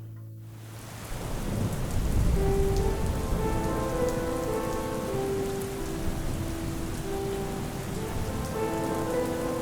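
Steady rain falling on a surface, swelling in about a second in, with a deep low rumble underneath.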